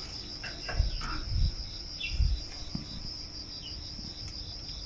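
Crickets chirping steadily in a continuous high trill, with a few soft low bumps from handling in the first couple of seconds.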